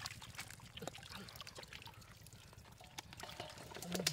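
Shallow water trickling and splashing, with many small scattered clicks and knocks.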